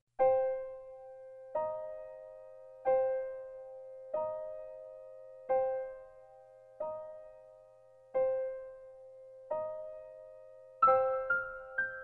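Background piano music: slow single notes about every second and a half, each ringing away, then a quicker run of notes near the end.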